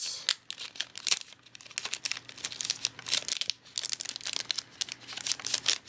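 Foil trading-card booster pack wrapper crinkling in the hands as it is opened, a dense irregular crackle.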